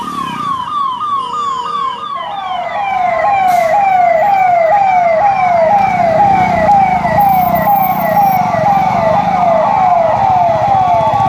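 Police vehicle sirens on a fast yelp, each sweeping up and down about three to four times a second. About two seconds in, a second siren, lower-pitched and louder, takes over from the first, with a low vehicle rumble underneath.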